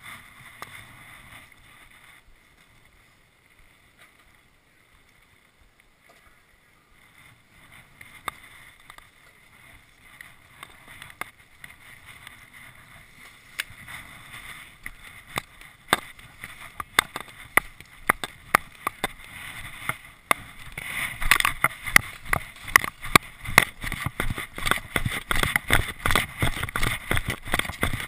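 Footsteps crunching in packed snow, about two steps a second, getting louder from about two-thirds of the way in. Before that come quieter scattered knocks and rustles of gear being handled.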